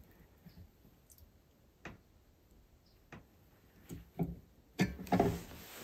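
Lineman's pliers gripping and bending a thin metal lock latch arm clamped in a bench vise: a few light, scattered metal clicks, then louder knocks and handling noise about four seconds in.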